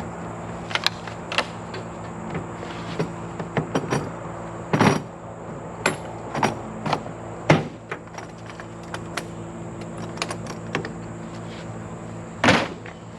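Scattered clanks, clicks and rattles of a metal lock-on tree stand being handled and fitted together after assembly with a wrench, the loudest knock near the end, over a steady low hum.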